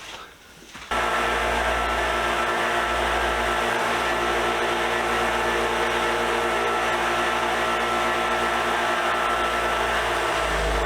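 Electric wire wheel starting about a second in and then running steadily at constant speed, cleaning rust and paint off the sockets.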